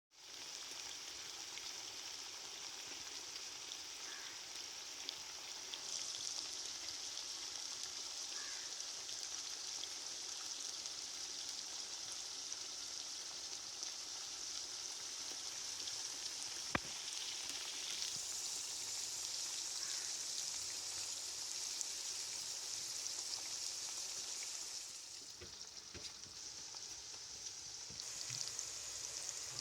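Food frying in hot oil in a pan: a steady sizzle, with one sharp click about halfway through and a softer stretch for a few seconds near the end.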